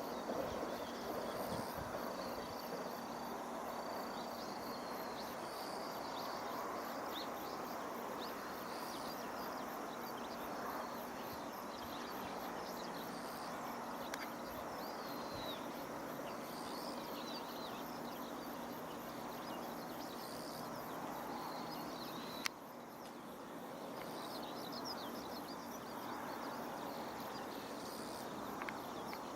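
Outdoor ambience: insects and birds chirping over a steady rushing noise, with a single sharp click about three-quarters of the way through.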